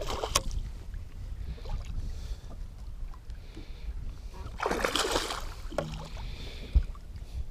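Small pike thrashing and splashing at the surface beside the boat as it is hand-landed, the biggest splash about five seconds in. A steady low rumble sits underneath, with a short knock near the end.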